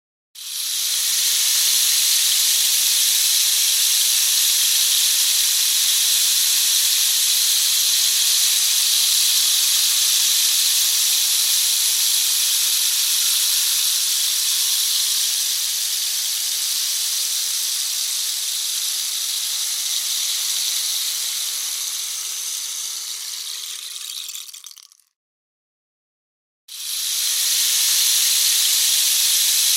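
Rain stick tipped over, its fill trickling down inside the tube in one long, steady, hissing cascade that slowly thins out and stops about 25 seconds in. After a short silence the stick is turned over and a fresh cascade starts.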